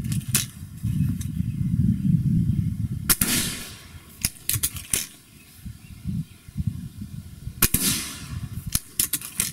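Two shots from a Gamo Swarm Magnum .22 air rifle, about three seconds apart and then near the eight-second mark. Each is a sharp crack with a short ringing tail. Lighter clicks come between and after the shots.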